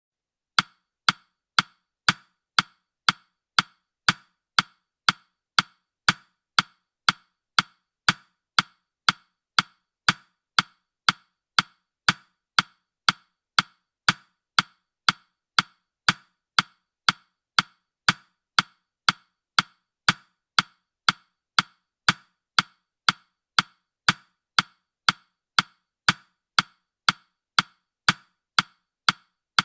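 Countdown timer's ticking sound effect: steady, sharp, woody ticks about two a second, each dying away quickly.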